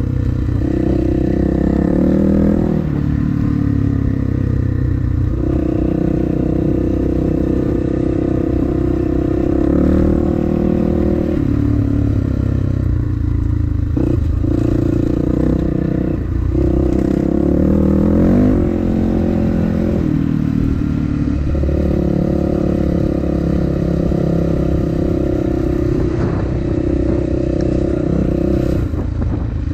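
Dirt bike engine running under way on a rough dirt trail, its note stepping up and down with throttle and gear changes and rising sharply in a rev about 18 seconds in. Knocks and rattles from the bike going over bumps sound over the engine.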